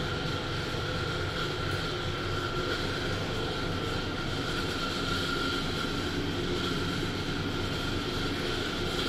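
Steady machine drone with a thin, high whine in it.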